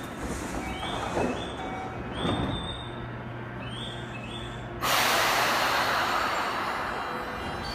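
Keio 8000-series electric train standing at the platform with a steady low hum and several short rising chirps. About five seconds in comes a sudden loud hiss of air that slowly fades, typical of the air brakes releasing before departure.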